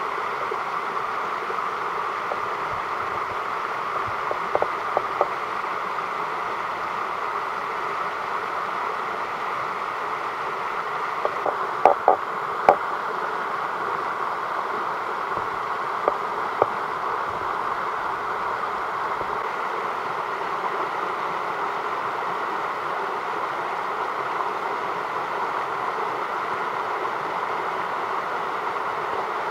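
Steady rush of flowing creek water, with a few short sharp clicks at intervals: a handful about 5 s in, a louder cluster near the middle and two more a few seconds later.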